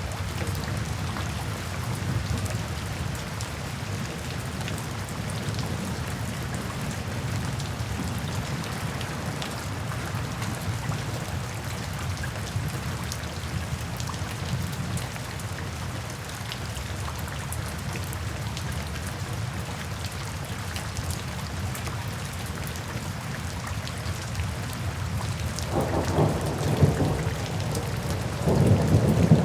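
Steady rain falling, with fine pattering drops over a low, even wash. Near the end thunder rumbles twice, louder than the rain.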